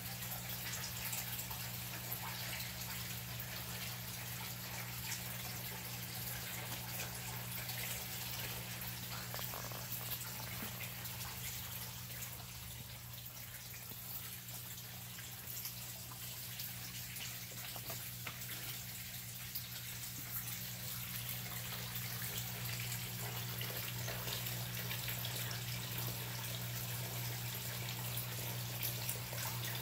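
Pond water running and trickling steadily, with scattered small drips, over a steady low hum.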